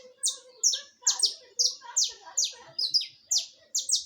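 Saffron finch singing a fast run of sharp, high notes, about three a second, each sliding quickly down in pitch.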